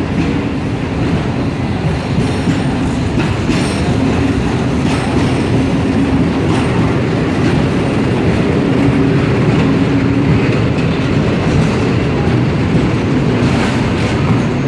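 Long freight train pulled by Renfe Class 253 electric locomotives rolling past, its wagons making a steady rumble with occasional clicks from the wheels.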